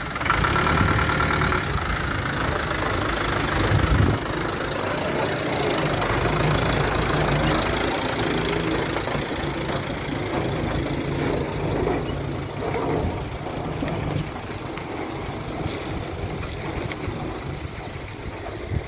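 Engine of a light goods truck running at idle close by, with a brief louder moment about four seconds in.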